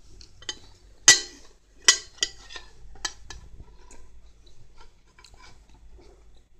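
Siamese cat biting and chewing crisp lettuce leaves in a clear plastic tray: a run of sharp crunches and clicks, the loudest about a second in, with several more soon after and softer ones later.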